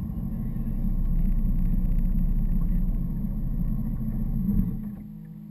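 Speedboat under way: a loud, steady low rumble of the engine and the run across the water. About five seconds in it drops away quickly.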